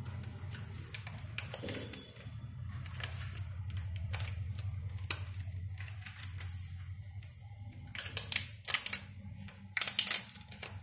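Irregular light clicks and taps of a smartphone being handled, over a steady low hum. The clicks come thicker near the end.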